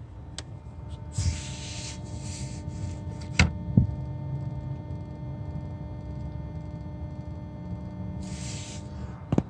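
Steady electrical humming buzz in the engine bay of a 2012 VW Tiguan TSI with the ignition on and the engine off, which the owner suspects is the oil pump running. A few sharp clicks and rustles from handling sound over it.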